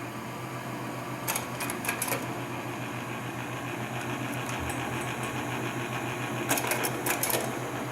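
Drill rig's engine running steadily with a fast, even beat, with bursts of sharp metallic clicks about a second and a half in and again near the end.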